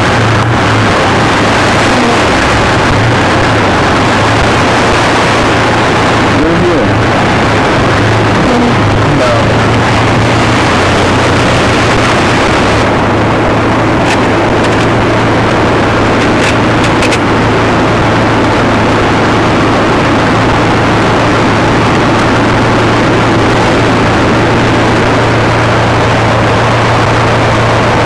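Loud, steady rushing of a mountain river in flood, with a low steady hum underneath.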